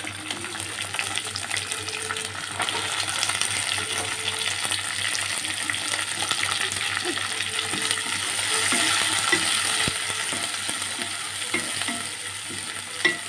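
Chopped onions tipped into hot oil in a pan, sizzling steadily while a spatula stirs and scrapes them around. The sizzling swells a little past the middle.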